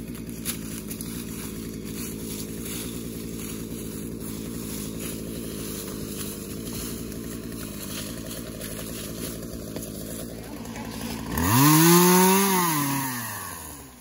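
Gas chainsaw idling steadily, then revved hard about eleven seconds in, its pitch rising and then falling away as it winds down near the end.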